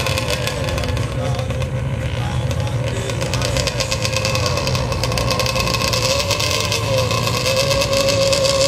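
Sport ATV engine running at the sand drag start line, holding a steady, high engine note that wavers slightly and grows a little louder near the end.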